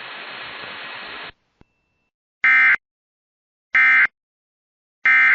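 Steady radio hiss that cuts off about a second in, then three short, identical bursts of EAS SAME digital data tones about a second and a half apart, the end-of-message signal that closes an emergency alert.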